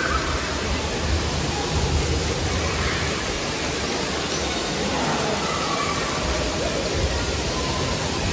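Steady rushing hiss of splash-pad fountains and water jets spraying onto tiles, with faint children's voices under it.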